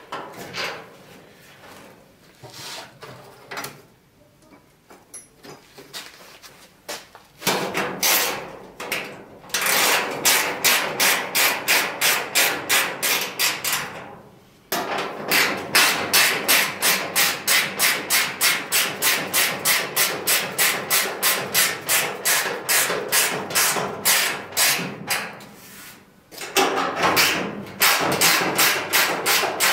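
A hand tool stroked rapidly back and forth over a steel sheet fitted in a car's wheel arch, rasping about three strokes a second. The strokes come in long runs, starting about a quarter of the way in, with a short break near the middle and another late on; before that there is only quieter, scattered handling of the sheet.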